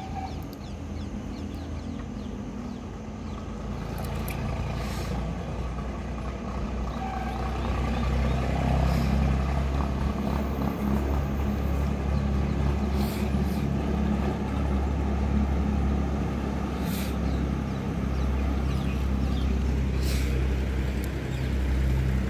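An engine running steadily, a low rumble that grows louder over the first several seconds and then holds, with a few short ticks on top.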